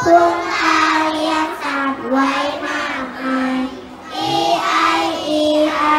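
A group of young children singing a song together in short phrases with long held notes.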